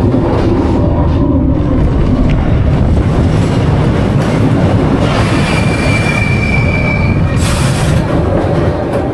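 Expedition Everest roller coaster train rolling along its steel track with a steady loud rumble. A high wheel squeal sounds for a couple of seconds past the middle, followed by a short hiss near the end.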